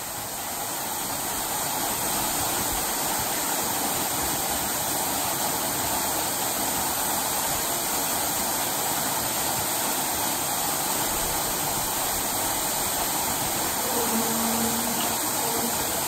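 Waterfall plunging into a rocky pool: a steady rushing of falling water.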